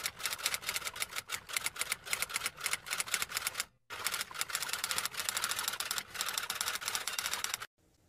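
Typewriter typing: rapid, uneven key strikes, broken by a brief pause about four seconds in and stopping just before the end.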